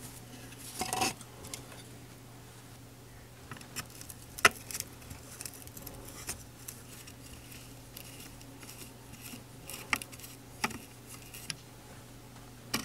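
Diecast metal toy car being handled and prodded with a thin metal tool: scattered small metallic clicks and scrapes, with one loud sharp click about four and a half seconds in, over a faint steady low hum.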